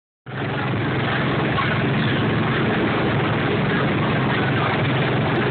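Go-kart-style ride car's small gasoline engine running steadily while driving, a low drone under a steady rushing noise.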